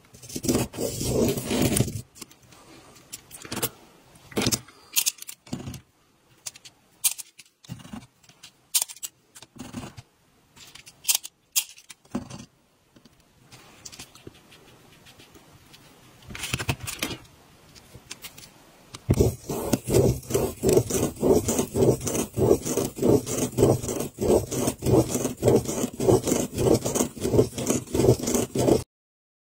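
Plastic Spirograph gear wheel rolling around inside its toothed ring, the teeth clicking while the ballpoint pen tip scratches on the paper. Dense scraping at the start, scattered clicks and scrapes through the middle, then a fast, even run of strokes for the last third that cuts off suddenly near the end.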